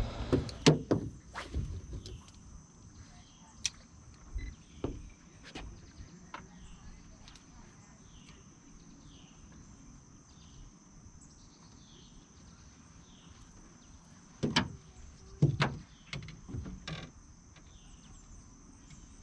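Steady high-pitched drone of insects, with a run of short falling chirps repeating less than a second apart. Scattered sharp knocks break through, a cluster near the start and another, the loudest, around fifteen seconds in.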